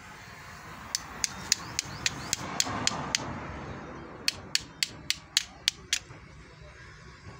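Sharp taps in two quick runs of about seven, roughly three to four a second, the first starting about a second in and the second after about four seconds, over a low background rumble that swells in the middle.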